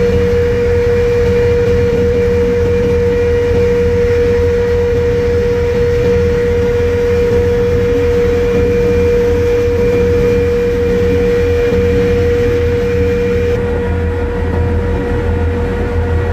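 Ferry's diesel engines running steadily under way: a low rumble with a constant droning tone over it.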